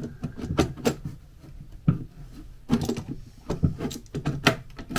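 Irregular clicks and knocks of hard parts being handled as a flap is fitted to an MGB heater box.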